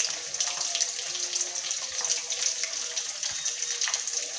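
Masala-coated fish pieces deep-frying in hot oil in a steel karahi: a steady sizzle with many small crackles and pops.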